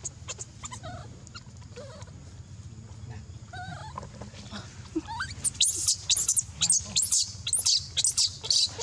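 Baby monkey crying: faint little squeaks at first, then from about five and a half seconds in a rapid run of loud, shrill screams, two to three a second.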